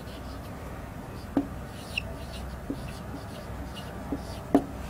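Marker writing on a whiteboard: scattered short taps and strokes of the pen tip, the sharpest tap about four and a half seconds in.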